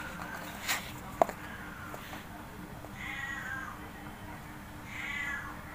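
Kitten meowing: short, high-pitched mews, the clearest two about three and five seconds in. A sharp click about a second in.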